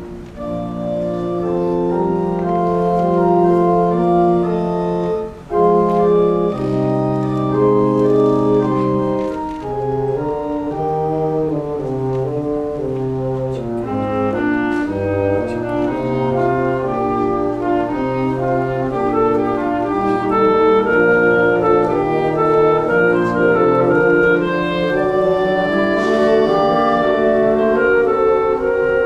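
Small instrumental ensemble led by a keyboard with an organ-like sound, playing slow, held chords that change every second or so, with a brief dip in level about five seconds in.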